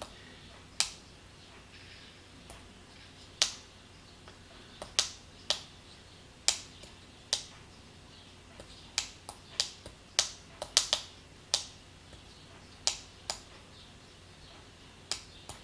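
Tactile pushbuttons on a joystick shield being pressed: about twenty sharp, separate clicks at irregular intervals, bunched into quick runs around the middle.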